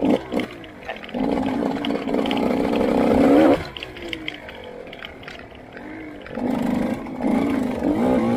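Dirt bike engine under hard throttle about a second in, its note climbing, then cut off sharply to a low idle with a falling note, before the throttle opens again near the end.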